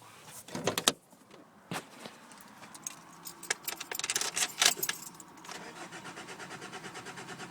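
Keys jangling and a few clicks, then in the second half the starter cranking the Nissan Primera's 2.2 diesel engine in an even pulsing rhythm without it firing. The immobiliser fault is keeping the engine from starting.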